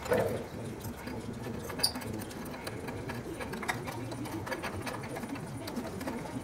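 Light clicks and rustling of thin stainless safety wire being threaded and twisted by hand around engine baffle plates, with a short low hum at the very start.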